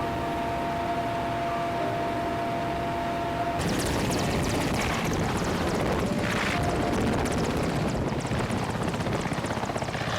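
Helicopter engine and rotor noise in flight. A little over a third of the way in, the sound changes abruptly to a louder, choppier rotor beat.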